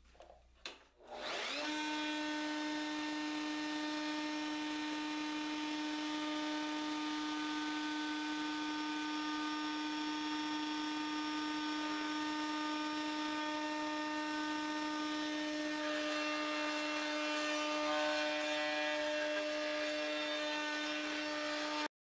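Table-mounted electric router starting up about a second in, its motor whine rising quickly to a steady high-pitched note. From about 16 seconds, a quarter-round bit cuts into a square zebrawood stick fed past it, adding a rough cutting noise over the whine as the corners are rounded off.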